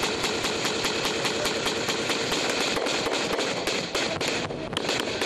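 Sustained automatic gunfire in a firefight: a rapid, unbroken string of sharp cracks, many shots a second, with a couple of short breaks near the end.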